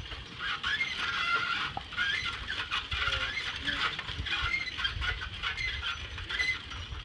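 A chorus of small birds chirping and calling, with many short squeaky chirps overlapping, over the low rumble of riding a bicycle along a road.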